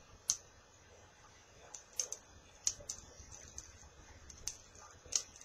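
A few light, irregular clicks and taps from small metal parts and tools being handled while a rebuildable atomizer is assembled.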